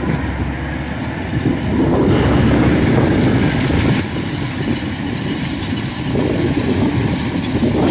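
Kubota DC-105X combine harvester running as it cuts rice, a steady low diesel drone that grows louder about two seconds in.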